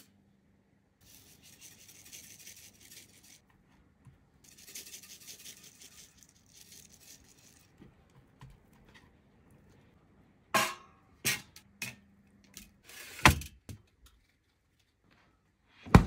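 Black pepper shaken from a tin onto pork belly in two spells of dry, high hiss, then a few sharp clicks and knocks of handling, and a loud knock right at the end.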